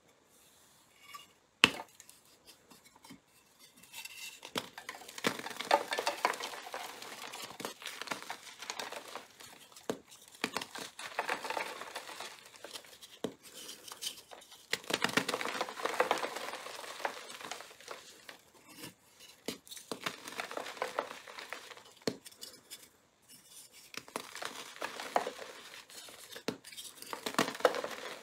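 Blocks of gym chalk coated in coloured powder and glitter being crushed and crumbled by hand: crisp, crackly crunching that comes in several bouts with short pauses between. A single sharp crack about two seconds in is the loudest moment.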